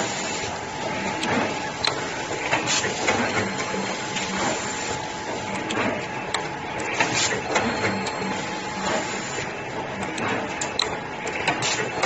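Yuanhan YH-YJS2.0 automatic cable cutting, stripping and two-end insulated-terminal crimping machine running through its cycle: a steady hum under repeated sharp clicks and clacks from its cutting, stripping and crimping heads, about one to two a second at an uneven pace.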